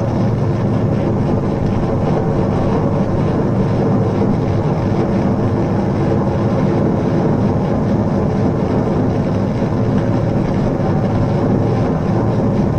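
Live electronic drone music from a street performer's synthesizer rig: a dense, steady wall of many held tones, without a beat.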